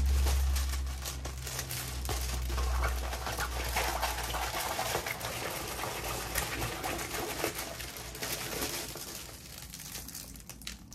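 Rustling and crinkling as a rolled diamond painting canvas, a poured-glue canvas with its plastic cover film, is handled and rolled the other way to flatten it. A low rumble of handling runs under the first four seconds or so, and the rustling thins out near the end.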